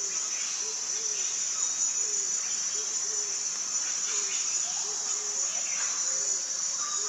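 Steady, high-pitched drone of an insect chorus, with short low calls repeating about once or twice a second underneath.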